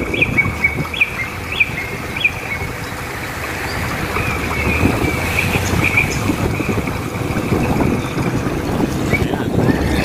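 Gulls calling: short high calls, a string of them about one every half second to second in the first couple of seconds and a few more around the middle, over a steady low rumble.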